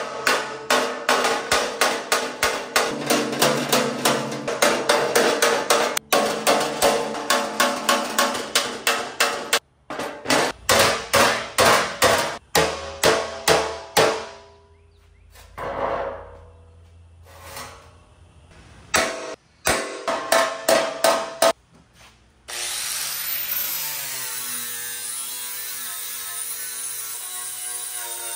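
Hammer blows on a steel chrome bumper: a fast run of ringing metal strikes, about three to four a second, then a pause and a few more strikes. About three-quarters of the way through, a handheld power sander starts on the bumper and runs steadily to the end.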